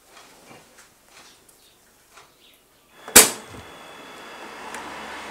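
Faint small sounds for about three seconds, then a sharp, loud click and an electric sewing machine running steadily as it stitches felt.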